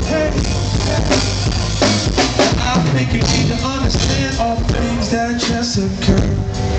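Live band playing: a drum kit keeps the beat under keyboard and other pitched parts.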